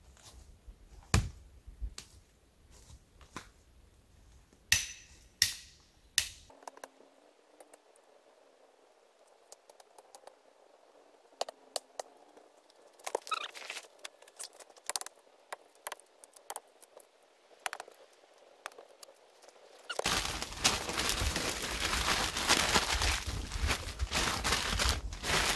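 Footsteps through dry fallen leaves with a few sharp snaps. From about 20 seconds in, loud steady rustling and crinkling of a bag or paper being handled to start a small campfire.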